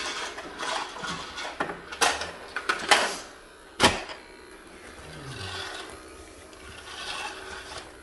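Plastic toy upright vacuum cleaner pushed and bumped about: rattling and scraping, with three sharp knocks about two, three and four seconds in, then quieter.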